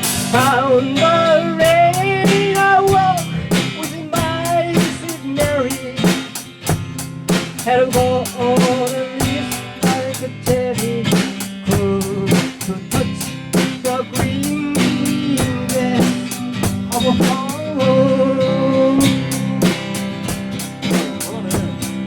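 Background music with a steady drum beat, guitar and a wavering melody line.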